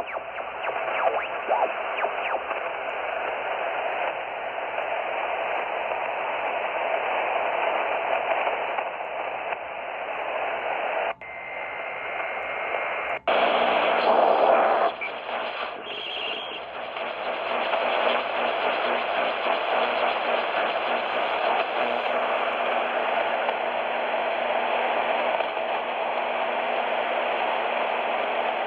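Shortwave radio receiver hissing with static between stations while the bands are tuned. A steady whistle of a carrier comes in briefly about 11 seconds in, and about 13 seconds in the hiss changes abruptly to a brighter static with a faint low tone under it.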